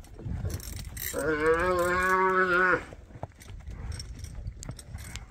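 A calf bawling once: a single long call starting about a second in and lasting under two seconds, ending abruptly.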